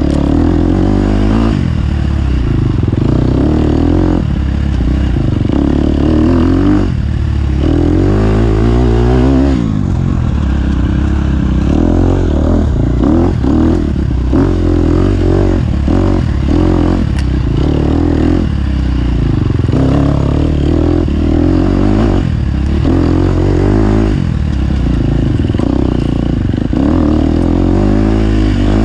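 Onboard sound of a racing engine at full effort through a race lap, revving up and falling off again and again as the vehicle accelerates and slows.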